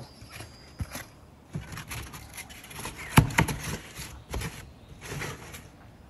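Paper-pulp egg crates being pushed and packed tightly together in a plastic bin, giving irregular scraping and rustling with scattered knocks. The loudest knock comes about three seconds in.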